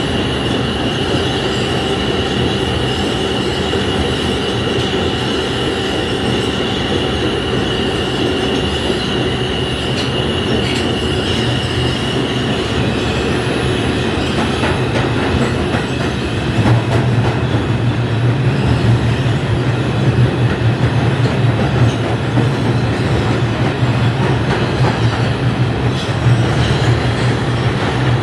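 An R142 subway car running at speed through a tunnel, heard from inside the car. There is a steady rumble of wheels on rail with a high held whine above it. From about 17 seconds in the rumble grows louder and rougher, with rattling clicks.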